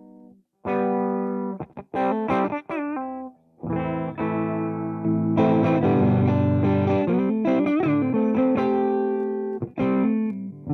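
Electric guitar with a new budget pickup, played through Amplitube 4 amp simulation with some distortion. It plays a few short stabs with string bends, then a sustained run of held notes and bends from about four seconds in.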